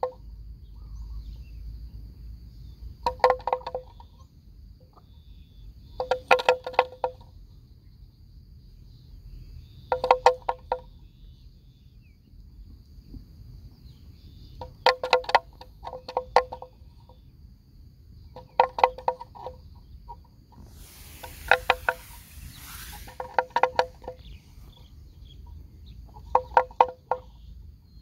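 A neck bell on a grazing water buffalo clanking in short bursts of a few strokes every few seconds as the animal moves its head, each stroke ringing with a clear pitch.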